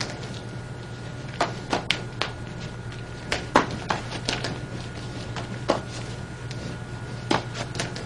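Two wooden nunchaku being twirled in figure eights, giving irregular sharp clicks and clacks as the sticks and their links rattle and knock, most of them between about one and five seconds in. A steady low hum runs underneath.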